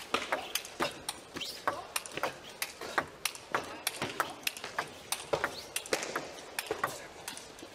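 Table tennis rally: the ball clicking sharply off the rubber rackets and the table in quick alternation, about two to three hits a second.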